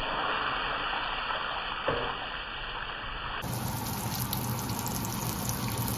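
Marinated seer fish steak shallow-frying in hot oil in a pan, a steady sizzle.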